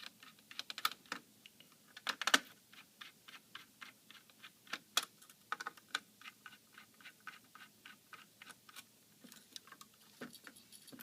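Many small irregular clicks and taps of a small screwdriver working the tiny screws that hold a laptop's CPU heatsink, with the odd louder tick of metal parts being handled.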